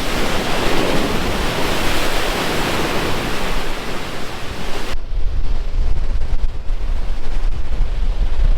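A steady rush of sea and wind across the microphone for about five seconds. It then changes abruptly to a low, buffeting rumble of wind on the microphone.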